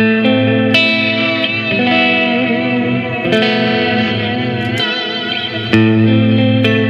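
Electric guitar playing slow, ringing chords through an EarthQuaker Devices Astral Destiny reverb pedal, the effect mix turned up. Four chords are struck: one at the start, one shortly after, one about halfway through and one near the end, each left to sustain.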